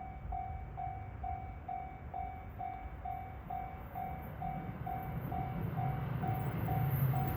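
Japanese railway level crossing's electronic warning bell dinging about twice a second. Under it, the low rumble of an approaching E231 series electric train grows louder over the last couple of seconds.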